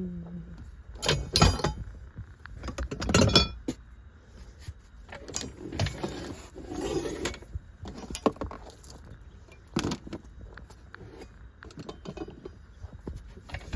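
Metal tools clinking and clattering as they are handled and sorted, in a series of sharp clinks with the loudest about a second and about three seconds in.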